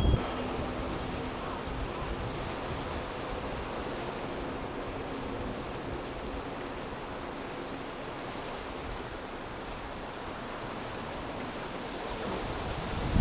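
Steady rush of wind and rough surf with a faint low hum in the first half.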